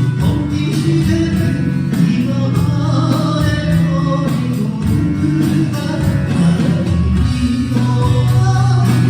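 Live acoustic music: strummed acoustic guitar with singing.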